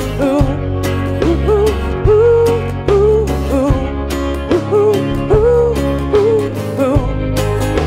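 Live band playing: strummed acoustic guitar, electric guitar, bass and drums, with a lead melody holding notes that bend and waver in pitch over the top.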